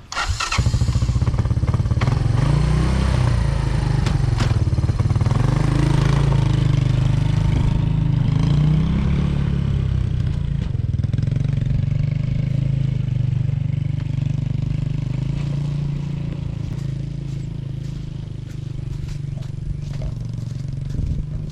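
1986 Honda FourTrax ATV engine starting and then running as it is ridden, its pitch rising and falling with the throttle. It grows somewhat fainter over the second half as the quad moves off.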